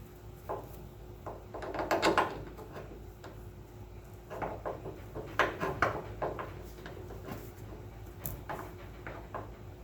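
Irregular metallic clunks and rattles as a new front shock absorber on a 1970 VW bus is swung and pushed up toward its top mount, in two clusters: one about two seconds in and a longer one in the middle.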